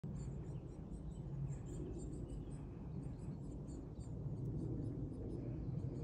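Forest ambience: faint, short, high bird chirps repeating throughout over a steady low rumble.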